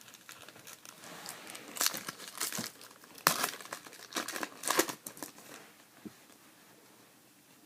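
Foil trading-card pack wrapper being torn open and crinkled, a run of sharp crackling rips over a few seconds that fades to quieter handling near the end.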